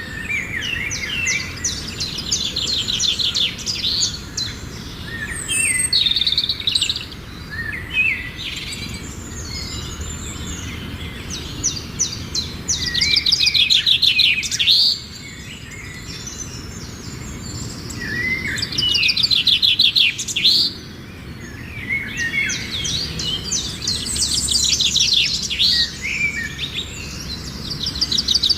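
Many small birds chirping and chattering together, an aviary flock, with bursts of fast rattling trills that come and go every few seconds over a low steady background rumble.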